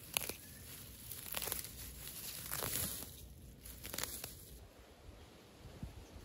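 Crinkling and tearing, with about five sharp snaps over the first four seconds, then quieter.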